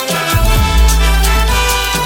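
Loud electronic dance music from a DJ set: a heavy bass note and a kick drum under sustained synth tones.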